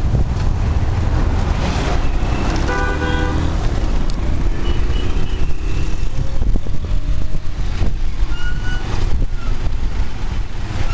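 Riding on a motorcycle through city traffic: a steady low rumble of engine and road noise, with vehicle horns tooting several times, the loudest about three seconds in.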